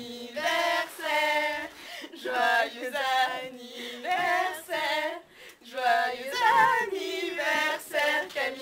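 A small group of girls singing together unaccompanied, in short held phrases with brief breaks between them.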